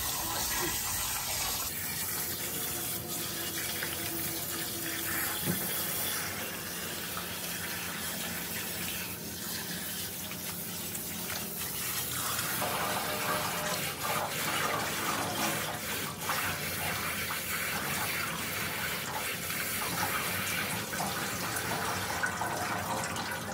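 Steady water spraying from a pre-rinse sink sprayer onto cut raw chicken pieces in a metal colander, with hands turning the wet chicken under the spray.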